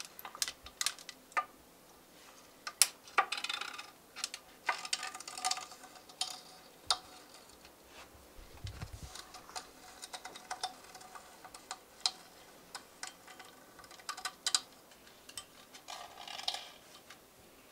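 Irregular light clicks, ticks and rustling of a cable routing kit's line and small fittings being handled and fed into a bike frame, with a soft low bump about eight and a half seconds in.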